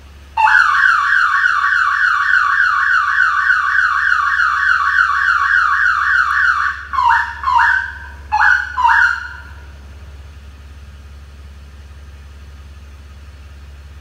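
Marine Guard boat alarm siren sounding in a loud, fast repeating upward-sweeping warble for about six seconds, the sign that the alarm has been triggered. It cuts off and is followed by two pairs of short chirps.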